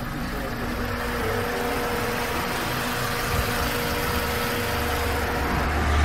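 Chrysler PT Cruiser's four-cylinder engine idling steadily with the bonnet open. A deeper rumble swells near the end.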